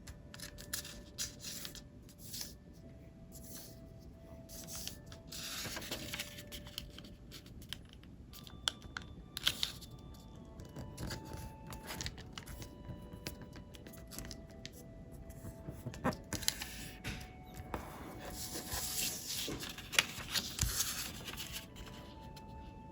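Square origami paper being folded and creased by hand: irregular rustling and crinkling with sharp little snaps as folds are pressed, busiest about six seconds in and again near the end. Faint background music with held notes plays underneath.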